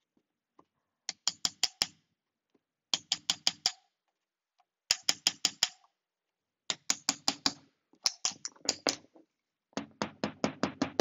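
Small hammer tapping a screwdriver wedged into paper fibre rush on a chair rail, packing the strands together to close gaps in the weave. About six quick runs of four to six sharp taps, with short pauses between.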